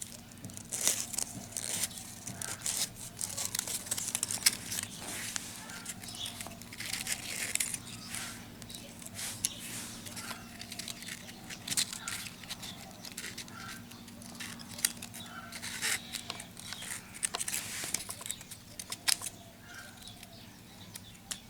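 Paper slot-insulation separators being pushed one by one into the slots of a ceiling fan stator with a bamboo stick: irregular short paper scrapes and small clicks.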